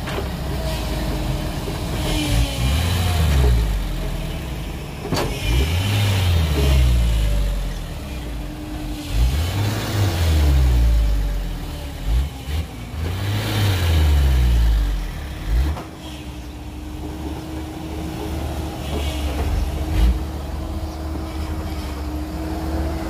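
Heavy diesel engine of the loading machinery revving up and falling back four times in a row, then settling to a steady idle for the last few seconds. A steady whine runs underneath throughout.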